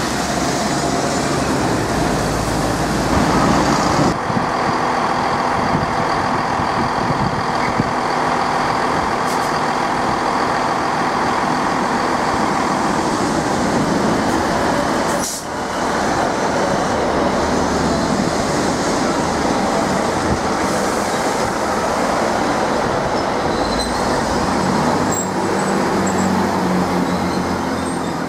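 A double-decker bus passes on a city street. Then a passenger multiple-unit train runs along a station platform with continuous rumbling noise.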